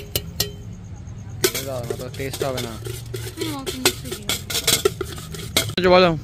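Stainless-steel utensils clinking and knocking: a spoon against steel bowls and tins while papri chaat is assembled, with a steel tin shaken, in quick irregular clicks.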